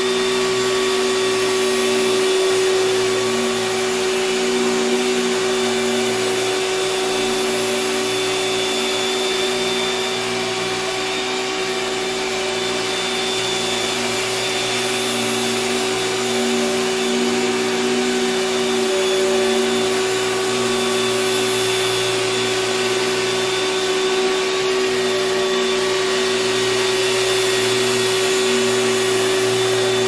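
2005 Hoover WindTunnel S3630 canister vacuum cleaner running, its motorised power nozzle pushed across carpet: a steady motor whine over rushing air, with a lower tone that wavers slightly now and then.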